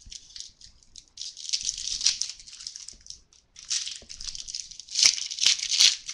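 Trading cards being handled: cards sliding and rubbing against each other in short hissy bursts, with a few sharp clicks about five to six seconds in.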